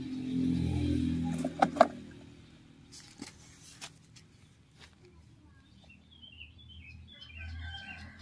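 A low hum with two sharp clicks in the first two seconds, then faint ticks, then a small bird chirping a quick run of short high notes over the last two seconds.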